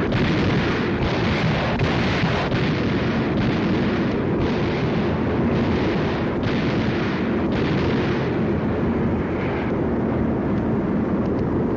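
Soundtrack effect of an aerial bombing: a loud, continuous roar of rushing noise and bomb blasts run together, with no pauses and no single distinct bang.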